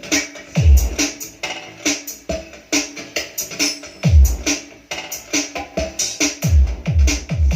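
Electronic music with a drum-machine beat and deep bass notes that slide down in pitch, played through a Mickle CA20 speaker.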